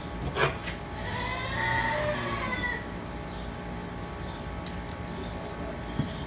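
A sharp knock, then a long drawn-out moo from cattle in the background, and another short knock near the end.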